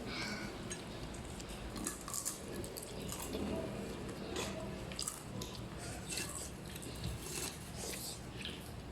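People eating: chewing, with many short scattered clicks and clinks of utensils and food containers.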